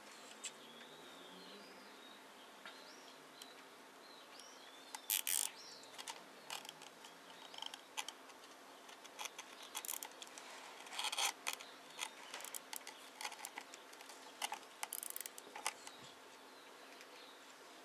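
Plastic cable ties being pulled tight around ficus roots: a run of short clicks and scrapes, loudest about five, eleven and fifteen seconds in. Birds chirp faintly in the first few seconds.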